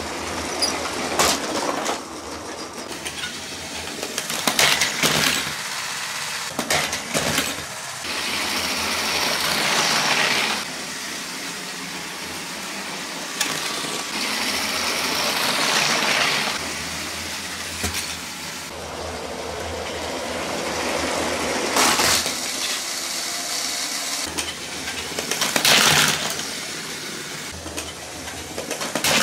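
Motorised Lego trains running along plastic track, swelling and fading as they pass. Several sudden crashes break in, with plastic bricks clattering.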